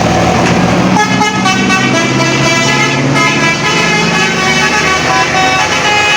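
Tour bus's Basuri 'telolet' multi-tone musical horn playing a tune of stepped notes, starting about a second in, over the bus's engine running.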